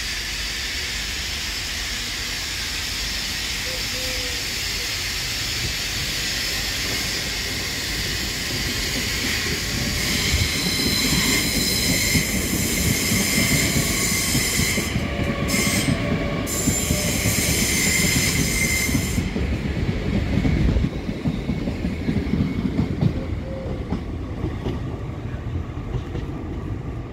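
Train moving through a station: the rumble of its wheels on the rails, growing louder about ten seconds in, with high squealing wheels on the rails that cut off abruptly about nineteen seconds in.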